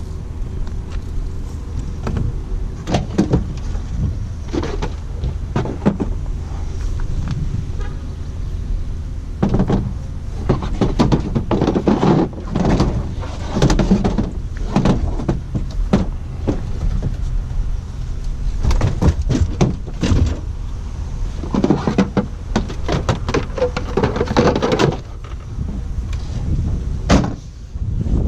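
A snowblower being handled and moved: irregular clunks, knocks and rattles of its metal parts, thickest in the middle of the stretch, over a steady low rumble.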